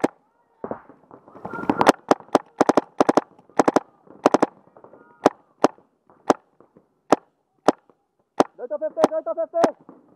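Paintball markers firing: sharp pops in quick strings of two or three, thinning to single shots about a second apart. A player shouts near the end.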